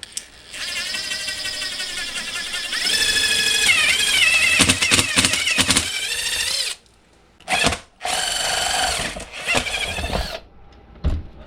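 Power drill running in two spells, the first about six seconds long with the motor pitch wavering under load and the second a few seconds long, boring a hole in the equipment board where the main power feed wire will come in.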